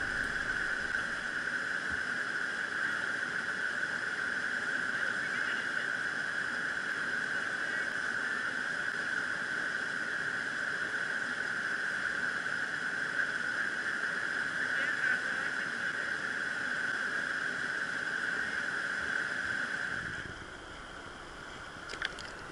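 Steady rushing of white-water river rapids over rocks. Near the end it drops to a quieter, lower wash of water.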